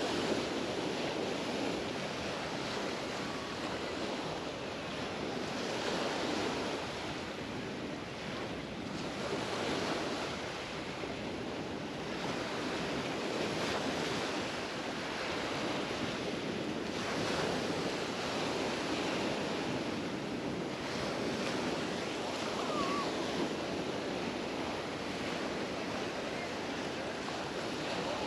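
Mediterranean surf washing onto the beach, swelling and easing every few seconds.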